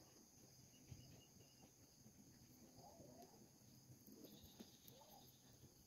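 Near silence, with a faint, steady, high-pitched chirring of crickets in the background.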